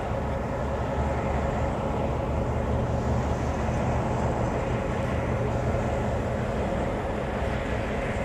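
Diesel locomotive engine running steadily as a single locomotive moves along the line, a low, even hum with no horn or bell.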